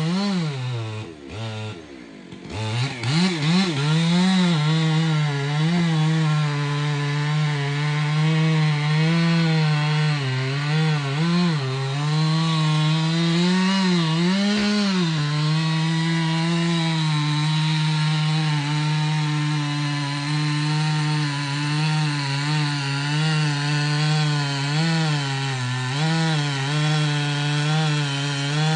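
Chainsaw running at high revs, cutting into a large tulip poplar trunk. The engine note drops and recovers about a second or two in, then holds steady under load with small wavers as the chain bites.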